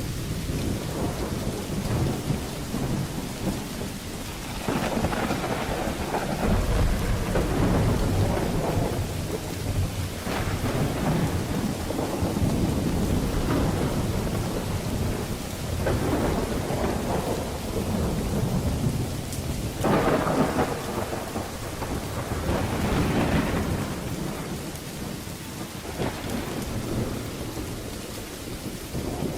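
Thunderstorm: steady heavy rain with thunder rumbling again and again, swelling and fading every few seconds, the strongest peals starting about five and twenty seconds in.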